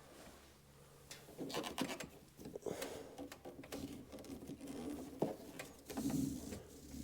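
Parts being handled and fitted by hand: scattered rubbing, scraping and small clicks, with a few sharp knocks.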